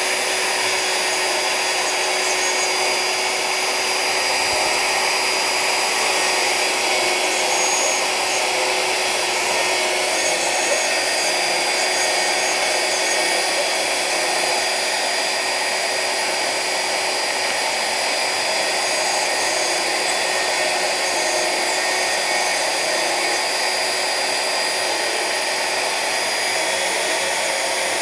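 Homemade CNC router's spindle running steadily with a high whine while its bit cuts 3 mm MDF.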